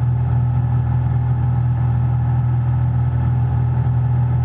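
The 1967 Cessna 172H's Continental O-300 six-cylinder engine and propeller running steadily in level flight, a loud, even drone with a low hum, heard inside the cabin.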